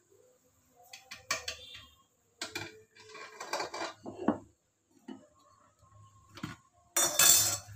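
A metal skimmer clinks and knocks against an aluminium kadai and utensils as a fried bhatura is lifted out of the oil and set aside, with scattered light taps and a few brief metallic rings. A short loud rustling burst comes near the end.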